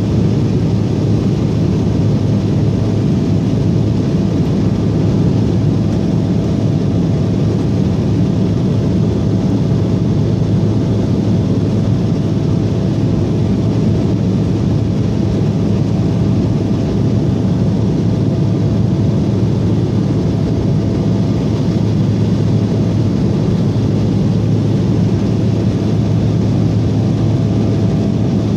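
Cabin noise of an Embraer E170 in the climb: the steady rush of its wing-mounted GE CF34-8E turbofans and airflow over the fuselage, with a steady low hum underneath.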